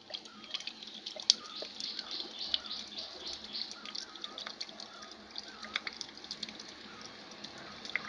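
Water trickling and splashing, with many small sharp drips and plinks through it; one plink about a second in stands out above the rest.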